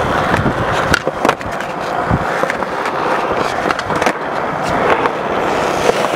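Skateboard on 3D-printed wheels rolling over concrete, a steady rumble. Several sharp clacks of the board striking the ground are spread through it.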